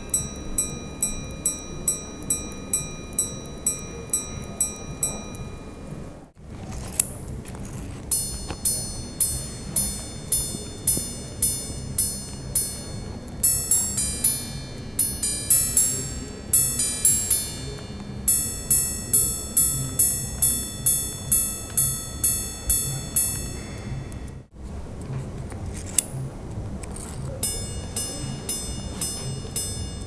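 Titanium-cased Bulgari minute repeater watches striking the time on their gongs, about two ringing strikes a second. The sequence is single hour strikes, then quarters as paired two-tone ding-dongs, then single minute strikes. A sharp click of the repeater slide sets each new sequence going, once about 7 s in and again near the end.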